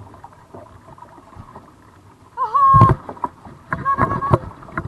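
Kayak paddle strokes dipping into and splashing the water, with a louder splash about halfway. A short high-pitched voice sound comes with that splash, and another comes near the end.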